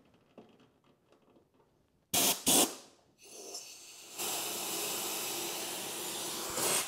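Hissing spray of pressurized gas from a nozzle: two short, loud blasts about two seconds in, then after a pause a longer steady blast of about two and a half seconds that cuts off sharply.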